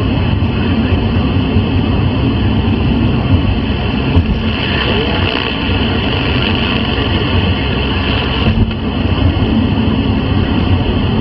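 CB radio on 27.625 MHz sideband giving out loud rushing noise over the channel instead of speech, the sign of a disruptive station jamming the frequency. A higher-pitched hiss comes in about four seconds in and cuts off suddenly about four seconds later.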